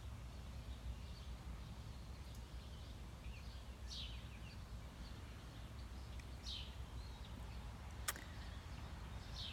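Blue jay calling three times, each a short call falling in pitch, over a low steady outdoor rumble, with fainter bird chirps in between. A single sharp click about eight seconds in.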